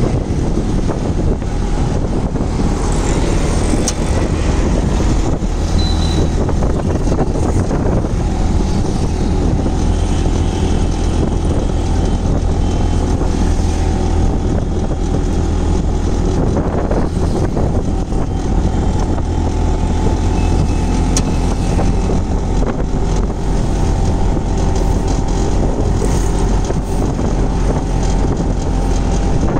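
Steady low rumble of street traffic and motor vehicles, mixed with wind buffeting the microphone.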